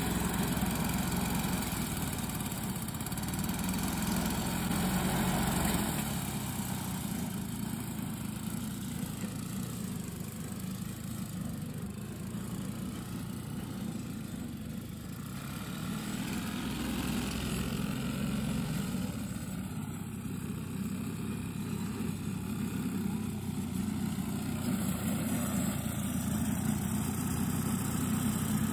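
Petrol-engined cylinder lawnmower running steadily as it is walked across grass, mowing; the engine sound fades as the mower moves away around the middle and grows louder again as it comes back near the end.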